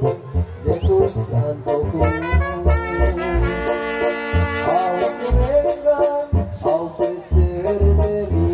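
Live band playing an instrumental passage: saxophone and trumpet carrying the melody over a drum kit keeping a steady beat.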